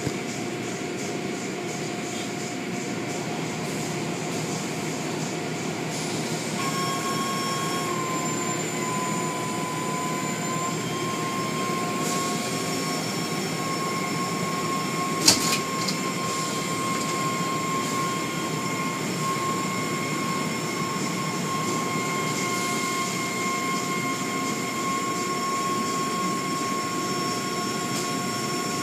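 Automatic car wash machinery running: a steady rushing noise, joined about six seconds in by a steady high whine, with one sharp click about halfway through.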